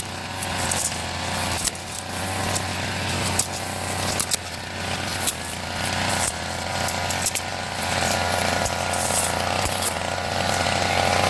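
Brush cutter engine running steadily while cutting grass, with irregular sharp ticks through it.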